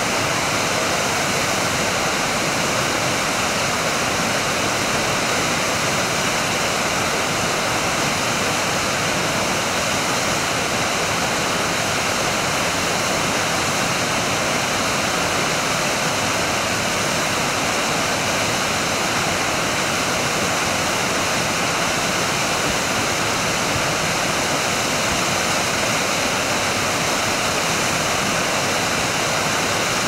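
Roughlock Falls, a waterfall, pouring steadily with an even, unbroken rush of falling water.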